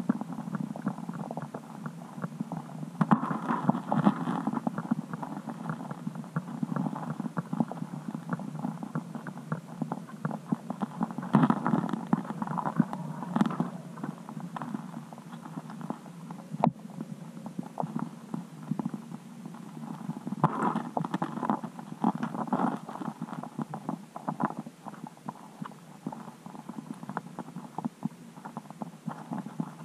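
Muffled underwater sound picked up by a submerged camera beneath the ice: dense crackling and clicking with a low gurgle, swelling into busier clusters about every eight seconds.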